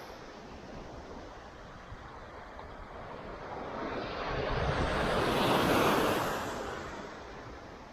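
Small waves breaking and washing up a beach, one swelling into a louder rush about halfway through and then fading, with wind buffeting the microphone.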